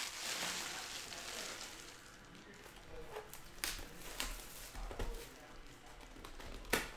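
Cardboard trading-card boxes being handled on a table: a soft rustle fading over the first couple of seconds, then scattered light taps and knocks, the sharpest near the end.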